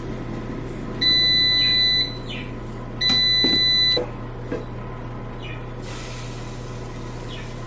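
Air fryer's control panel giving two long electronic beeps, about a second each and a second apart, over a low steady hum; near the end a steady high hiss of rushing air sets in.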